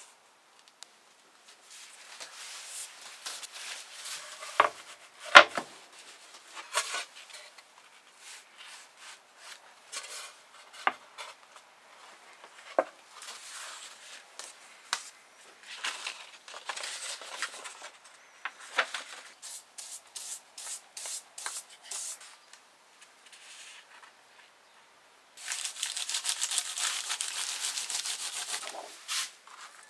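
Sheets of paper rustling and crackling as they are handled, folded and creased by hand on a wooden workbench, with a sharp knock about five seconds in. Near the end, a bone folder rubs steadily along a paper fold for a few seconds.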